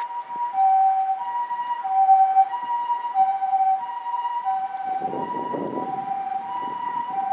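Japanese ambulance's Osaka Siren Mark-10 electronic siren sounding the two-tone hi-lo "pee-poh" call, a higher and a lower tone taking turns about every 0.6 s, as the ambulance drives past. About five seconds in, a rush of low road noise joins it.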